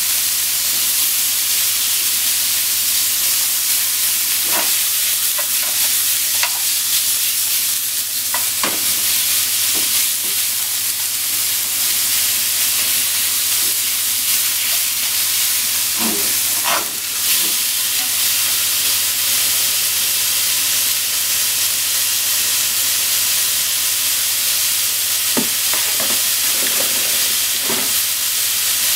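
Thinly sliced meat sizzling steadily in a hot non-stick frying pan as it is stir-fried, with wooden chopsticks knocking and scraping against the pan now and then.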